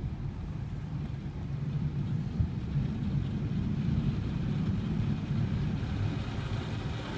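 Automatic car wash machinery running, heard muffled from inside the car's cabin: a steady low rumble, with a brief knock about two and a half seconds in.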